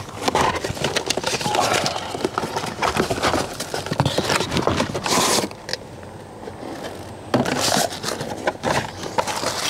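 A cardboard speaker box being opened and its cardboard packing insert pulled out: irregular rustling, scraping and tapping of cardboard, with louder rustles about five seconds in and again near the end, separated by a quieter moment.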